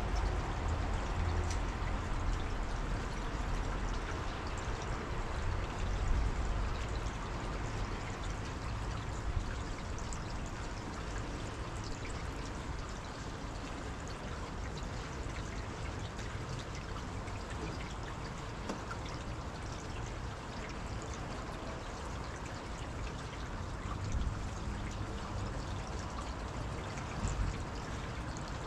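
Steady rushing, trickling water, with a low rumble at the start and again near the end.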